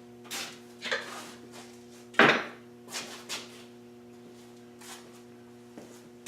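Several irregular knocks and clatters of tools and parts being handled on a workbench, the loudest a sharp knock about two seconds in. A steady low electrical hum runs underneath.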